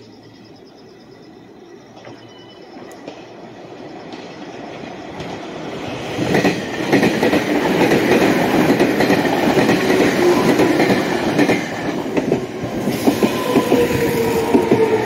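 A Meitetsu electric train approaching on the Nagoya Main Line. The running noise grows steadily louder over the first six seconds, then stays loud with wheels clattering over the rail joints. From about two-thirds of the way in, a whine slides slowly down in pitch.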